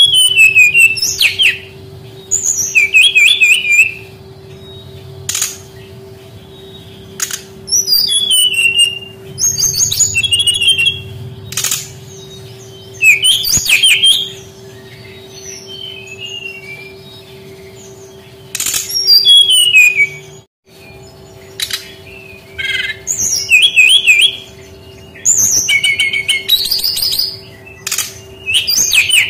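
Brown-chested jungle flycatcher singing: bursts of a second or two of fast, high, warbling and chirping notes, repeated with short pauses between them, over a steady low hum.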